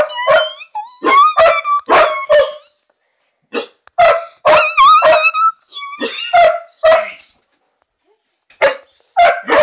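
Small long-haired puppy barking, high-pitched, in quick runs of several barks broken by short pauses.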